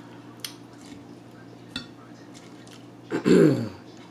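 Light clicks of cutlery against a plate, twice, then about three seconds in a short, louder sound that falls in pitch.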